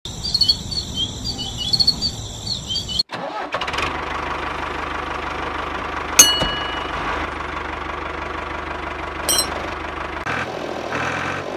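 High chirping for about three seconds, then after an abrupt change a motor running steadily, with one sharp loud click about six seconds in.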